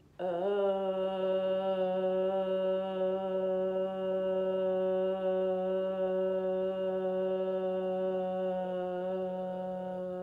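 A woman's voice toning for the first chakra: one long, steady low note sung from the belly. It begins a moment in and is held without a break, slowly fading near the end.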